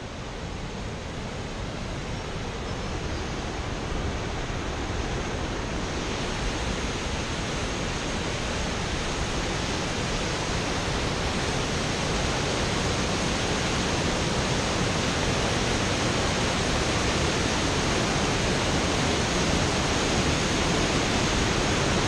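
Whitewater of a steep mountain river rushing and tumbling over boulders: a steady rush of water that grows gradually louder.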